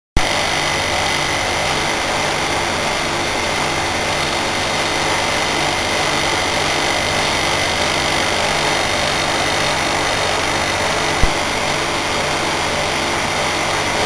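Heat pump air conditioner running shortly after start-up, its compressor and fan giving a steady hum with a thin high whine. There is one brief knock about eleven seconds in.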